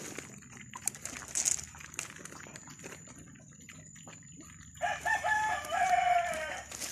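A rooster crows once, a call of about two seconds in the second half, the loudest sound here. Under it, puppies eating from a plate make scattered small clicks.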